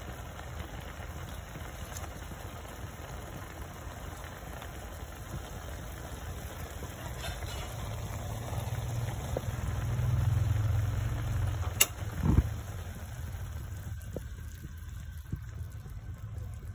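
Pot of squid adobo simmering, the sauce bubbling over a steady low rumble that swells for a few seconds past the middle. A sharp click and a dull knock come about twelve seconds in.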